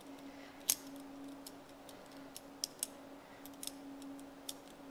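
Scattered light metal clicks and taps of a hand tool working on the vertical shaper's steel tool holder to loosen the keyseat cutter, the sharpest about a second in. A steady low hum runs underneath.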